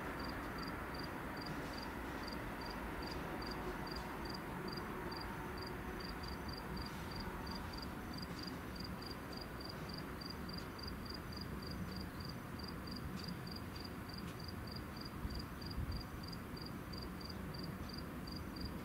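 Insect chirping steadily, a short high chirp about three times a second, over the faint rumble of an Amtrak Acela pulling away, which fades out within the first couple of seconds.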